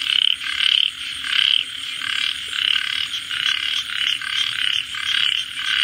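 Chorus of frogs calling: short, repeated calls overlapping one another a few times a second, with no let-up.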